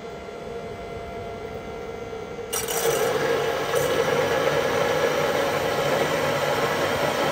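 Electric bilge pump switching on about two and a half seconds in, its motor then running steadily as it pumps bilge water out of the boat.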